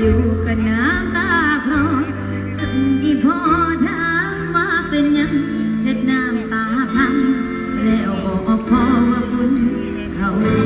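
Music with a singing voice: a wavering sung melody over steady sustained accompaniment and bass.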